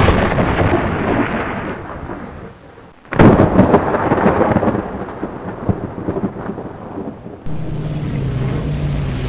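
Two thunderclaps, each a sudden loud crash that rumbles away over a few seconds, the second about three seconds in. Near the end a low steady hum comes in.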